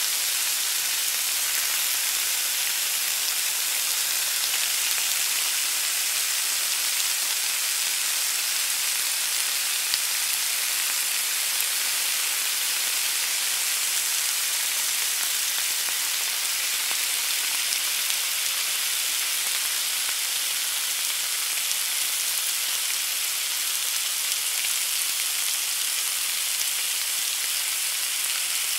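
A steady, even hiss that holds at one level throughout, with no pitch or rhythm, of the sizzling or rain-like kind.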